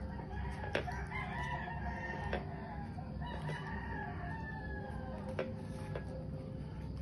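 Fowl calling in the background, long drawn-out calls, one falling slowly in pitch. A few light clicks come as a fork and fingers open the banana-leaf wrapper of a steamed suman.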